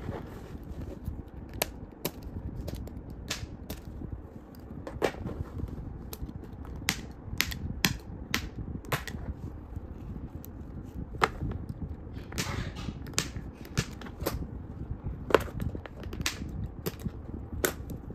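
Irregular sharp plastic clicks as a plastic action figure is handled and its joints are moved, about one or two clicks a second, with a brief scraping rustle about twelve seconds in.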